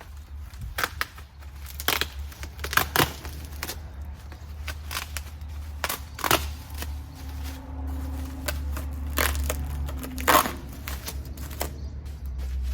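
Irregular crinkling, crackling and clicking as the tube door parts and their packaging are handled and unwrapped, over a steady low rumble.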